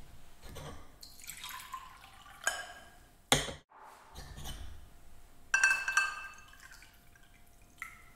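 Small drinking glasses clinking as they are picked up and set down, then liquid poured from one glass into another, loudest a little past halfway.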